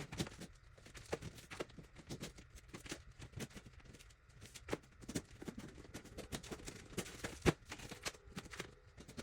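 Irregular light knocks and clicks, with one sharper knock about two thirds of the way through.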